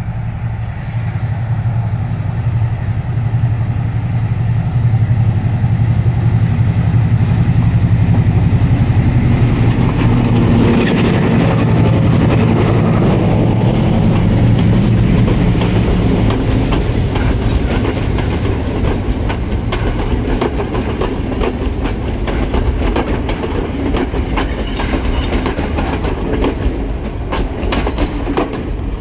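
Sri Lanka Railways diesel-hauled passenger train passing close by on the upcountry line. The locomotive's low engine drone swells to its loudest over the first half, then the carriages rattle past with a run of sharp clickety-clack wheel clicks over the rail joints.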